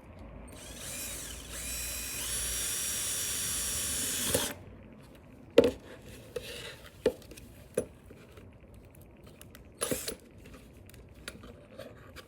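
Electric drill running for about four seconds, its motor whine rising at first and then holding steady as it bores a hanging hole through a dried gourd shell, then stopping abruptly. A few sharp knocks follow as the drill and gourd are handled.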